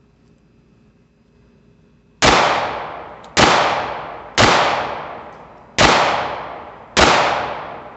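Five pistol shots from a Taurus 1911 .45 ACP, fired at a steady pace roughly a second apart, each report dying away over about a second. The extended 10-round Pro Mag feeds all five without a jam.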